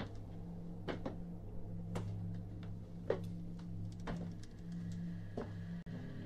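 A film soundtrack playing quietly through a television: a steady low drone with scattered faint clicks.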